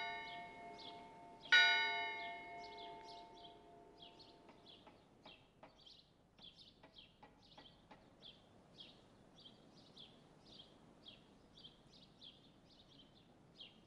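A tower clock's bell striking: a stroke is already ringing at the start and a second stroke comes about a second and a half in, each ringing out and fading over a few seconds. After that, faint short high chirps repeat about three times a second.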